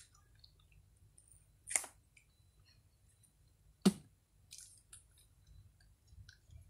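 Small plastic toy packaging being handled and picked at, with soft rustles and two sharp clicks, the second and louder one about four seconds in.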